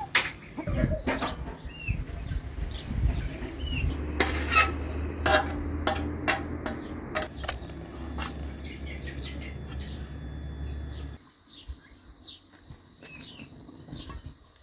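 Utensil knocks and scrapes on a frying pan of chopped herbs over a low steady hum, which stops abruptly about eleven seconds in. Small birds chirp throughout.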